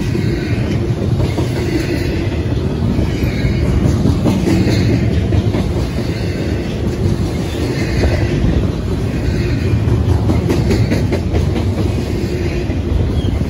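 Double-stack intermodal freight cars rolling past close by: a loud, steady low rumble with wheels clicking over the rail joints.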